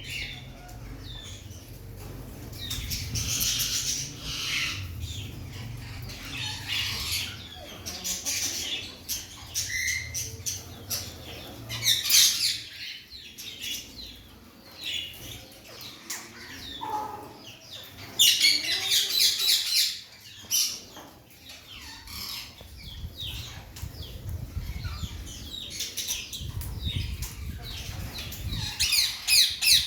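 Ring-necked parakeets in an aviary calling and squawking, with loud runs of fast, repeated, high chattering notes several times.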